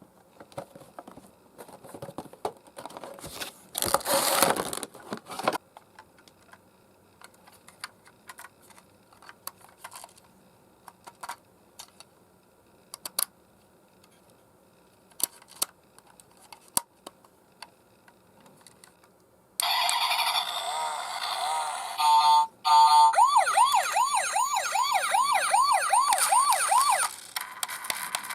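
Scattered clicks and rustling from handling the toy ambulance, then its electronic siren sounds: a few seconds of steady stacked tones, a brief break, then a fast rising-and-falling wail at about two and a half cycles a second for about four seconds before it stops.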